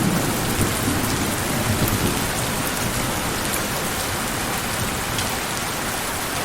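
Steady heavy rain hissing, with a low rumble of distant thunder that dies away over the first couple of seconds.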